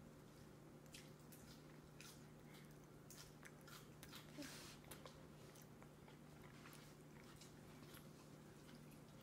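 Faint sounds of a toddler chewing macaroni, soft mouth clicks and smacks that cluster in the first half, over a steady low room hum.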